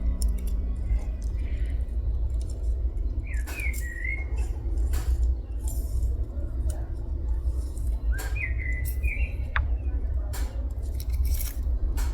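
A small bird sings two short warbling phrases, about three seconds in and again about eight seconds in, over a steady low rumble, with scattered light clicks and rustles.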